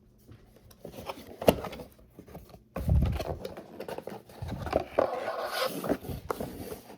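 Handling noise: irregular clicks, knocks and scraping, with a dull thump about three seconds in.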